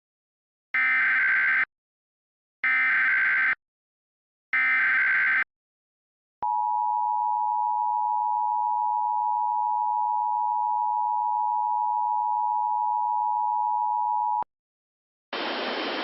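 Emergency Alert System SAME header: three short screeching data bursts about a second apart, encoding a tornado warning. They are followed by the long steady EAS attention tone for about eight seconds. A hiss of static starts near the end.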